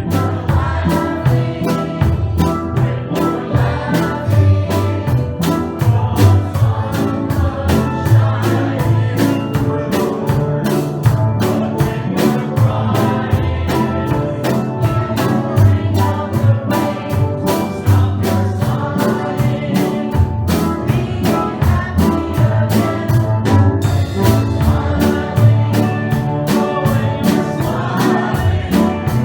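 Steel band playing a tune: many steel pans struck together in a steady rhythm over a strong low bass line.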